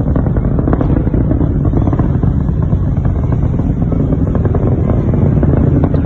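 Distant SpaceX Falcon 9 rocket's nine Merlin first-stage engines heard as a deep, steady rumble with crackling, the launch noise arriving well after liftoff.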